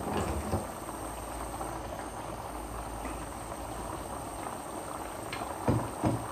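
Steady hiss of chicken cooking in a pan on the stove, with a few knocks of cookware just after the start and two more near the end.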